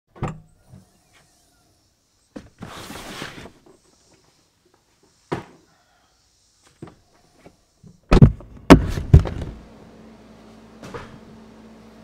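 Rear liftgate of a Toyota 4Runner being unlatched and opened: a few clicks and a short rush of noise, then a cluster of loud thumps as the cargo area is handled. After the thumps a steady low hum sets in.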